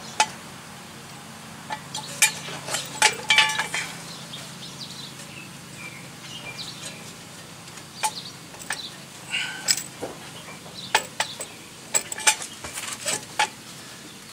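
Irregular metallic clicks and clinks of a steel brake caliper wind-back tool being handled and worked against a rear disc brake caliper, some with a brief ring.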